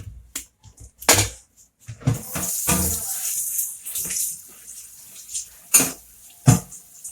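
Kitchen sink tap running for about two seconds, with several sharp knocks and clatters of kitchenware before and after.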